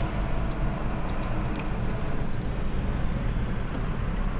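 Truck's diesel engine running steadily as heard inside the cab while the truck rolls slowly, a low hum with road noise.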